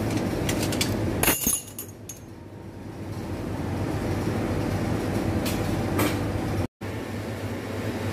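Metal spoons and forks clinking against each other as they are washed, a few sharp clinks about a second in and again near the end, over a steady rumbling background noise with a low hum. The sound cuts out for a moment near the end.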